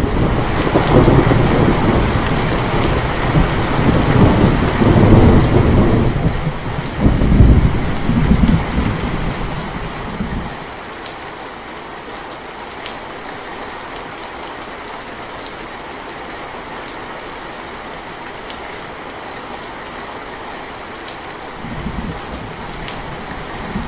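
Steady rain falling, with a long low rumble of thunder that swells twice and fades out about ten seconds in, and a short, fainter rumble near the end. A few separate drips tick above the rain.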